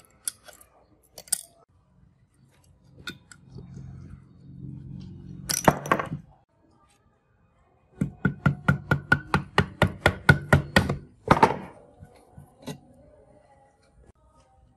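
A hammer rapping quickly on the rusty engine block of a small generator, about five blows a second for some three seconds, ending with a heavier blow. Before that, metal parts scrape and give one sharp clank.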